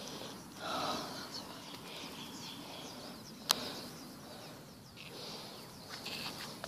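Quiet outdoor ambience with faint bird chirps. A brief soft noise comes about half a second to a second in, and a single sharp click about three and a half seconds in.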